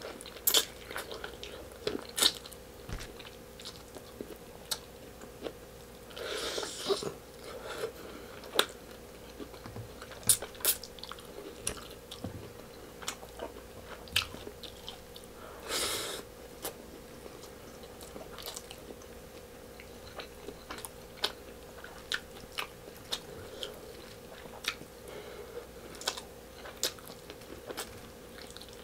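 Close-miked mouth sounds of a person chewing and biting beef rib kaldereta and rice eaten by hand: wet smacks and frequent sharp clicks, with two longer wet stretches, one about a quarter of the way in and one about halfway. A faint steady hum runs underneath.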